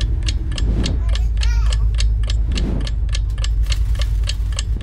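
A ticking clock sound effect, about four sharp, even ticks a second, over a deep steady hum with a low swell roughly every two seconds.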